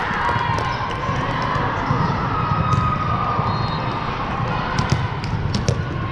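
Din of a large hall full of volleyball courts: many players' voices calling and shouting across the floor, with sharp slaps and bounces of volleyballs, several close together near the end.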